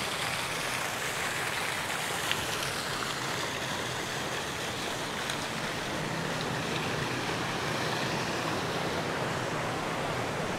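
Steady, even outdoor rushing noise at a constant level, with no separate knocks or calls standing out.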